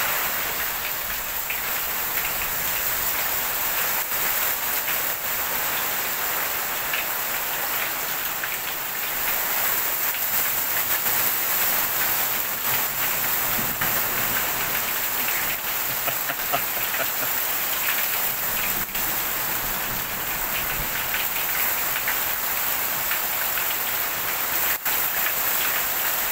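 Heavy hail pelting the porch roof overhead, a dense, steady clatter of hailstones with no letup.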